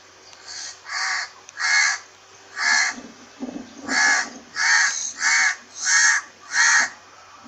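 A crow cawing repeatedly, about nine caws in all. The first few are fainter and spaced out, and from about halfway the caws come louder in a quick, even series.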